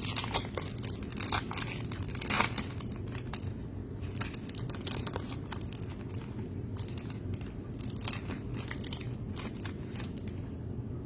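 Plastic trading-card pack wrapper crinkling and being torn open, with cards handled; a dense run of crackles in the first few seconds, then scattered ones.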